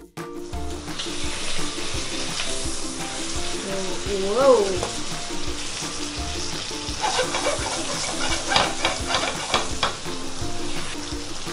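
A thick steak searing in hot oil with garlic cloves in a frying pan, sizzling steadily. About seven to ten seconds in comes a flurry of short clicks and scrapes as metal tongs work the steak in the pan.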